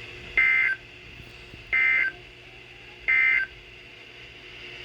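Three short bursts of Emergency Alert System SAME digital data tones from a weather radio, a harsh two-tone squawk repeated at even spacing about a second apart. This is the end-of-message code that closes the severe thunderstorm warning broadcast.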